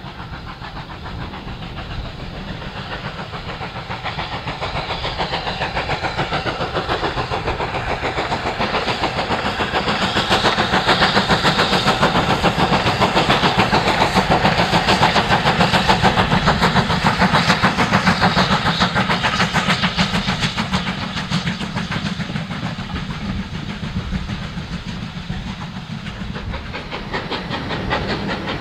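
BR Standard Class 5 two-cylinder 4-6-0 steam locomotive No. 73082 passing with its train, its rapid chuffing and running gear growing louder to a peak about halfway through, then fading as it draws away.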